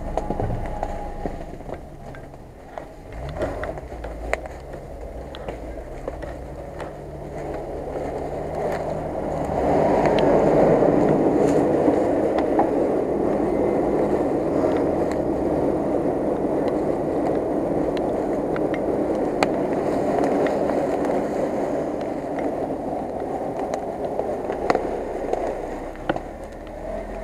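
Jeep Wrangler Rubicon crawling slowly over leaf-covered forest ground: its engine runs low under a steady crunching and rustling of leaves and twigs, which grows louder about ten seconds in.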